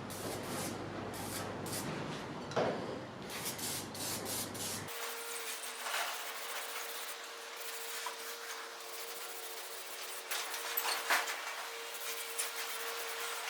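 Parts washer running, its pumped solvent giving a steady hiss, with a few light clinks of metal parts.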